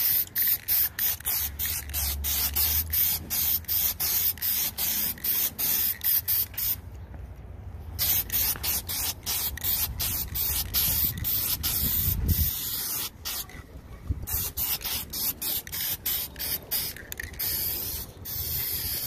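Aerosol spray-paint can hissing in many short, quick bursts, with two brief pauses. Wind rumbles low on the microphone.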